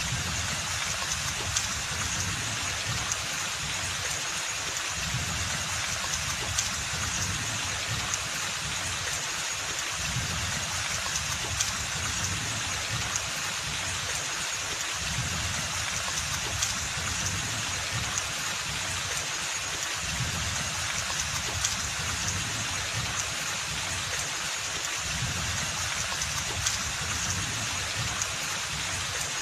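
Steady rain falling on forest foliage, an even hiss of rainfall with scattered individual drops ticking, over a low rumble that swells and fades every few seconds.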